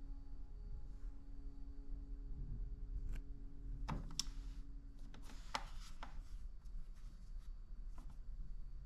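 A few sharp clicks and knocks, bunched about halfway through, over a low steady room hum: small objects being handled in a small room.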